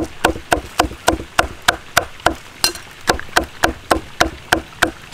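A meat cleaver chopping dried red chillies on a thick round wooden chopping block, a steady run of sharp knocks about three and a half a second.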